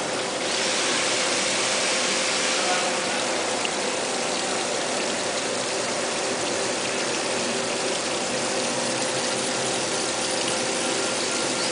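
External cylindrical grinding machine running, with a steady hiss of flowing coolant and a faint steady hum.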